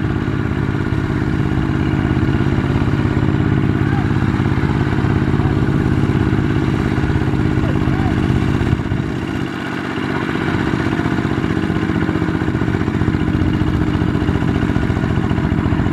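Two-wheel walking tractor's single-cylinder diesel engine running steadily under load as it drags a loaded trailer through paddy mud, its note dipping briefly a little past halfway.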